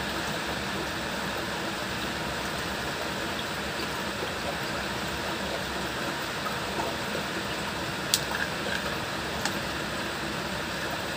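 Steady fan-like hiss, with a sharp click about eight seconds in and a lighter one a second and a half later as a perforated plastic bottle is handled.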